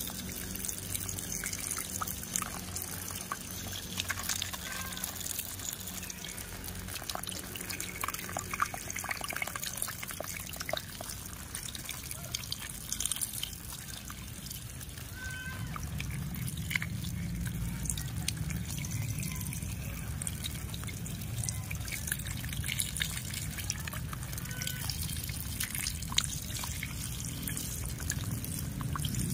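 A thin stream of water trickling over a small plastic toy truck and the hand holding it, with many small drips and splashes. A low rumble comes in about halfway through.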